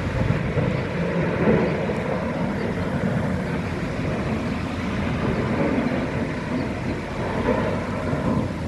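Steady, loud rumble of heavy machinery working a scrap metal yard, with cranes running.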